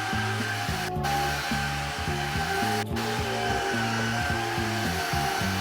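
Xiaomi vacuum cleaner running steadily: a loud rushing of air with a steady motor whine, the hiss cutting out for an instant twice. Music with a low, stepping melody plays underneath.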